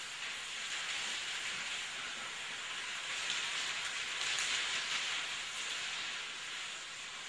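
Toilet paper unspooling off spinning rolls and pouring off a table edge onto a pile on the floor: a steady, papery rustling hiss that swells slightly now and then.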